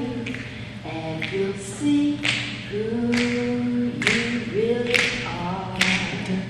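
A woman singing a cappella, with no accompaniment, in long held notes that slide from one pitch to the next.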